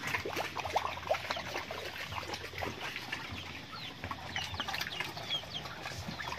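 Pigs feeding at a trough, with many short chewing clicks and smacks, and short high falling chirps in the second half.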